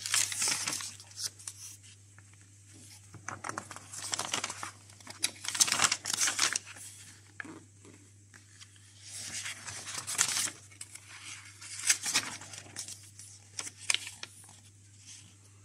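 Pages of an old paper instruction booklet being turned and handled: dry paper rustling and crinkling in five or so separate bursts, the loudest about halfway through.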